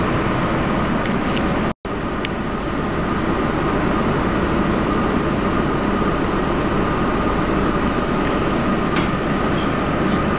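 Steady rumble and running noise of a moving public-transport vehicle heard from inside, with a faint steady whine over it; the sound cuts out for an instant about two seconds in.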